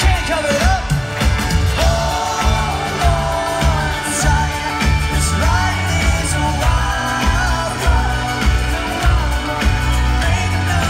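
Live pop-punk band playing, with singing over a steady drum and bass beat.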